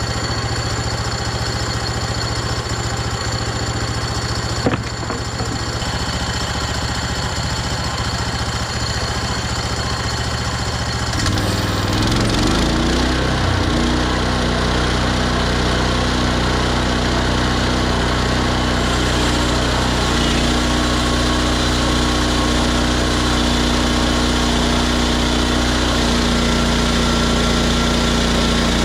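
Engine of a Hudson HFE30 bandsaw sawmill running steadily. About eleven seconds in, its note changes: the pitch wavers briefly, then settles into a new steady, slightly louder tone. There is a single click about five seconds in.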